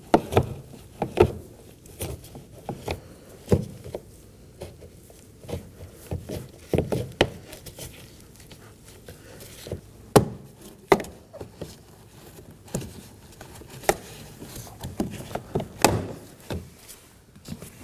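Plastic trim tool prying up a car door's window switch panel: scattered clicks, taps and light scraping of plastic, with a few sharp clicks in the second half.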